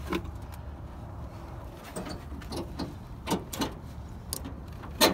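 Scattered light clicks and knocks of plastic being handled: a pickup truck's headlight housing and its wiring connectors being worked into place, over a steady low rumble.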